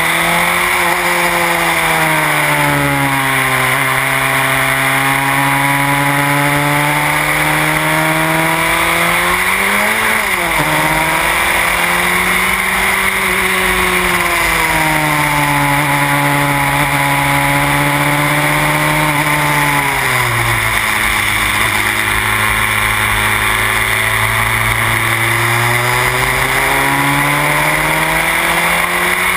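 Van Diemen Formula Renault R98 single-seater's engine heard onboard under race load, its revs rising and falling through the gears and corners: a quick jump and drop about a third of the way in, a fall to lower revs about two-thirds in that holds for several seconds, then climbing again near the end. A steady hiss of wind runs underneath.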